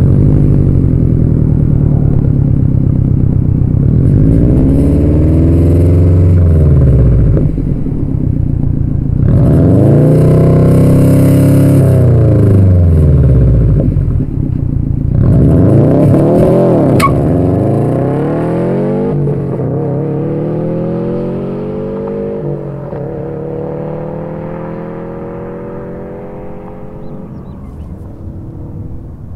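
2015 Subaru STI's turbocharged 2.5-litre flat-four through a Tomei titanium catback exhaust: three free revs, each rising and falling over about three seconds, then the car pulls away, shifting up, and the sound slowly fades as it drives off.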